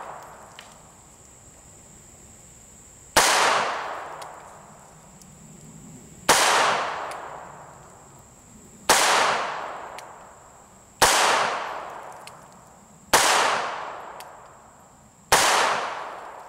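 Bersa Thunder 380 CC pistol firing .380 ACP rounds, six single shots about two to three seconds apart, each sharp crack trailing off over about a second.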